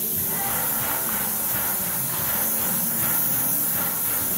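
Paint spray gun hissing steadily as it sprays paint.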